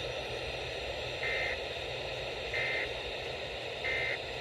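Three short warbling data bursts of the Emergency Alert System end-of-message code, each about a third of a second long and a little over a second apart, over a steady hiss of radio static.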